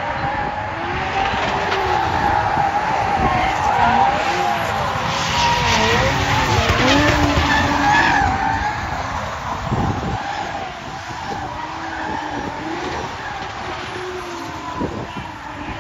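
Three drift cars sliding in a close tandem run, their engines revving up and down over screeching tyres. Louder through the first half, easing off in the second.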